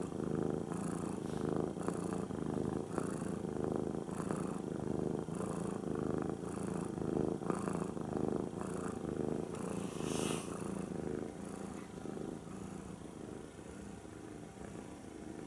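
Close-up of a black cat purring steadily, the purr pulsing with its breaths about every half-second. A brief soft hiss comes about ten seconds in, and the purr grows a little quieter near the end.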